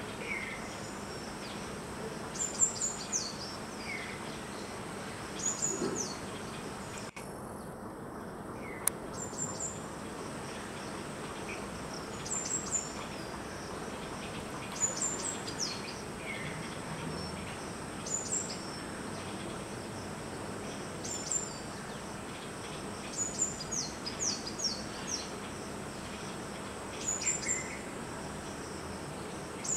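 Small bird calling repeatedly, clusters of short high falling notes every two to three seconds, over a steady high insect drone. The sound briefly drops out about seven seconds in.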